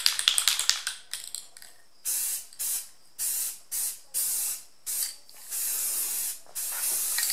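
Aerosol spray can of high-heat primer: its mixing ball rattles quickly for the first second as the can is shaken, then the nozzle hisses in about eight short spray bursts from about two seconds in, the last two longer, as the first coat goes onto a cast iron exhaust manifold.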